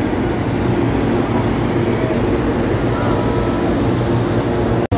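Steady loud rumbling drone of hot-air balloons being inflated and launched, from their propane burners and inflator fans, with faint voices. The sound breaks off for an instant near the end.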